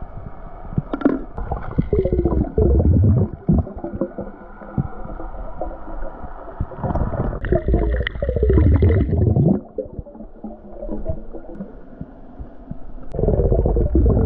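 Underwater bubbling and gurgling picked up by a submerged camera as a snorkeler swims. It comes in three louder surges: a couple of seconds in, near the middle, and at the end.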